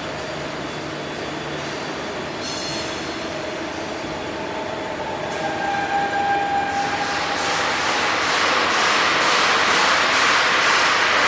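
Machinery running: a steady mechanical noise with a brief whine about five seconds in, then a louder hiss that builds over the last few seconds.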